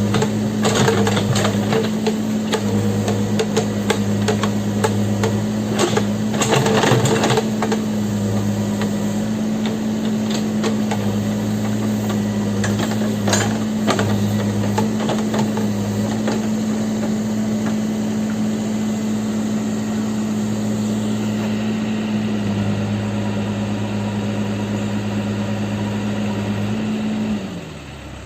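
Backhoe loader's diesel engine running steadily at raised revs, with metallic clanks and knocks during the first several seconds. Near the end the engine is throttled down and drops to idle.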